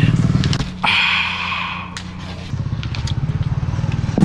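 A motorbike engine running close by with a steady low puttering, and a brief rushing noise about a second in.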